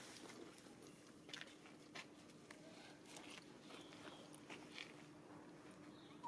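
Near silence: faint scattered clicks and crackles over a steady low hum.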